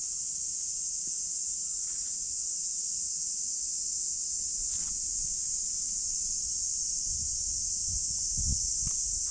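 Steady, high-pitched drone of a summer insect chorus, typical of cicadas, with a few low thumps near the end.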